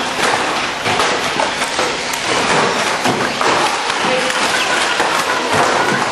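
1/12-scale RC banger cars racing on an oval track: a continuous clatter of rapid knocks and taps as the cars bump into each other and the track barriers.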